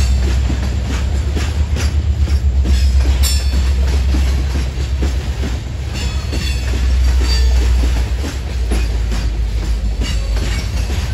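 Loaded coal hopper cars rolling past with a heavy low rumble, their wheels clicking rhythmically over rail joints. Brief high-pitched wheel squeals come about three seconds in and again around six seconds in.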